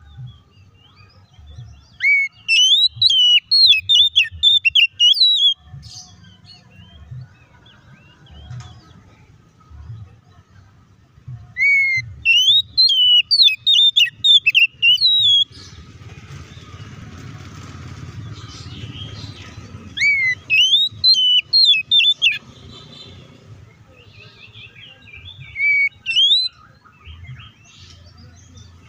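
Oriental magpie-robin singing loud, full song in bursts of rapid whistled notes that sweep sharply upward. There are three phrases of a few seconds each with pauses between, and a short one near the end. It is the bold, combative song that Indonesian keepers call ngeplong tarung.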